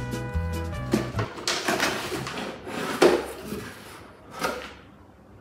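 Background music with a bass line cuts off about a second in. Then come rustling and sharp crackles from a cardboard box being handled and a plastic-wrapped item being pulled out of it, the loudest crackle about three seconds in.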